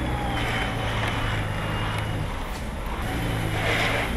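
Small walk-behind snow blower running with a steady motor hum as it clears snow, with a few hissing surges as snow is thrown.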